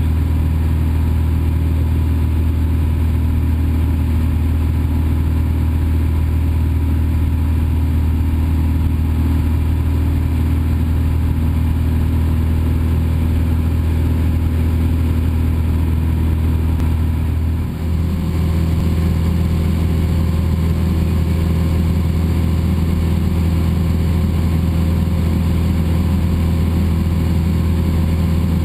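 Cessna 172's piston engine and propeller droning steadily, heard inside the cabin in cruise flight. The drone dips briefly about 18 seconds in, then carries on with a slightly changed tone.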